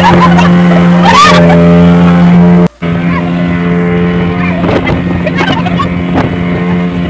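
Yamaha Enduro outboard motor on a speed boat, running steadily at speed with the hull rushing through the water. The drone breaks off briefly about three seconds in, then carries on a little quieter.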